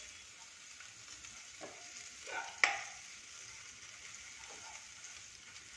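Pepper, cumin and garlic paste sizzling in ghee in a non-stick wok while a metal ladle stirs and scrapes it. The ladle clinks sharply against the pan once, about two and a half seconds in.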